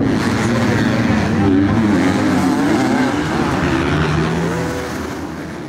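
Motocross bike engines racing on the track, their pitch rising and falling as the riders work the throttle, getting quieter near the end.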